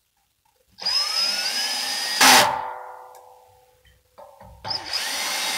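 Cordless drill driving screws into the skew motor bracket of a satellite dish. The motor whine rises in pitch as it spins up, ends in a sharp loud burst as the screw seats, then fades as the drill spins down. A second screw starts driving near the end.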